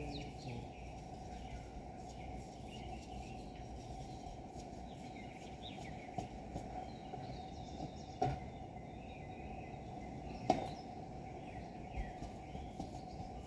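Outdoor background noise, a steady low hiss, with scattered bird chirps and two sharp clicks past the middle.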